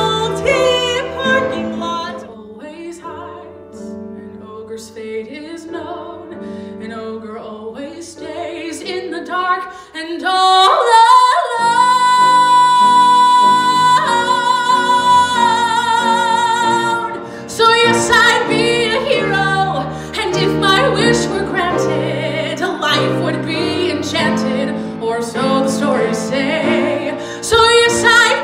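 A solo voice singing a musical-theatre song with grand piano accompaniment. After a softer passage, the voice holds one long, high note with vibrato for about five seconds, then the song goes on.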